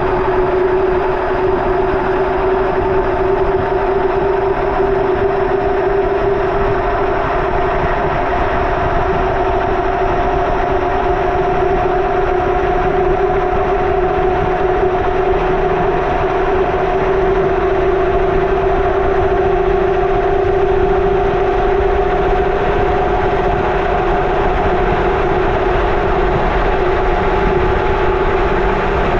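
Indesit washing machine spinning at high speed, heard from inside the drum: a loud, steady whirring run with a strong motor whine that holds almost level in pitch.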